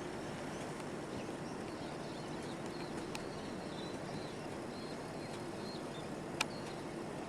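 Steady rushing of the flooded Burdekin River, with faint short bird chirps over it and a sharp click about six seconds in.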